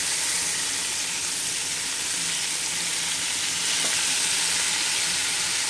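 Chimichurri-coated shrimp sizzling steadily in hot olive oil in a stainless-steel skillet.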